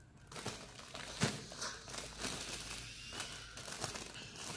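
Gift wrapping crinkling and rustling in short irregular bursts as it is folded and handled by hand.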